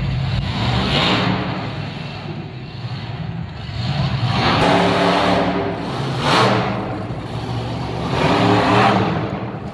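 Monster truck engine revving hard in four loud swells over a steady low engine note.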